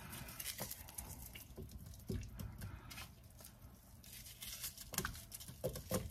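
Sliced onion rings being dropped by hand into a stainless steel pan of chicken broth: faint, scattered small splashes and taps.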